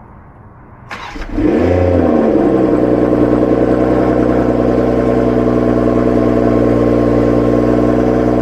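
BMW Z4 M40i's B58 3.0-litre turbocharged inline-six cold-started about a second in: a brief crank, then the engine catches and flares up in revs before dropping back within a second or two. It then settles into a steady, loud cold idle.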